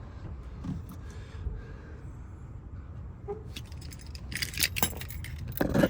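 Keys jangling and clicking, starting a little past halfway and loudest near the end, over a low steady rumble.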